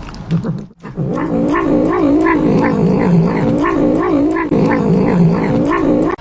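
A cat yowling: one long drawn-out call that wavers up and down in pitch over and over, starting about a second in.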